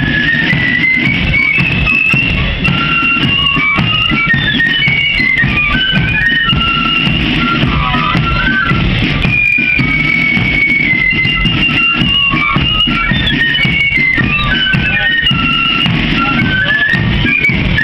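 Marching flute band playing a tune in unison over a steady beat of drums, heard up close from within the band.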